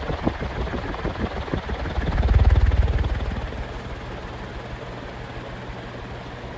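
1980s Nadair 56-inch industrial ceiling fan with steel blades running flat out on high speed. A rapid, regular pulsing of the blades is heard at first. A loud low rumble swells and fades about two seconds in, then the fan settles into a steady whir with a low motor hum.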